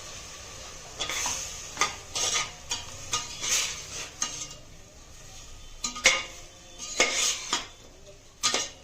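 Chicken pieces sizzling in hot oil in a pressure cooker while a metal spoon stirs them, clattering and scraping against the pot a dozen or so times.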